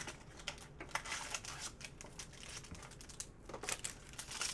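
Crinkling and tearing of a trading card pack wrapper being ripped open by hand, a run of short, sharp crackles.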